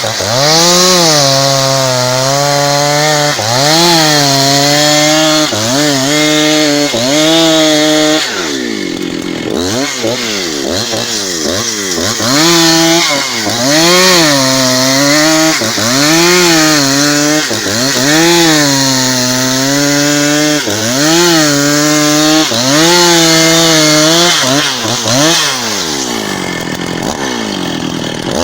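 Husqvarna 272XP two-stroke chainsaw with a 30-inch bar ripping a log lengthwise at high revs. The engine pitch keeps dipping under load and climbing back, about every one and a half to two seconds, and sags lower for a couple of seconds near a third of the way in.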